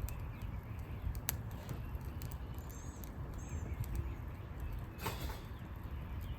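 Outdoor background: a steady low rumble with scattered clicks and a few short, high chirps, one pair about three seconds in, and a brief rustling burst about five seconds in.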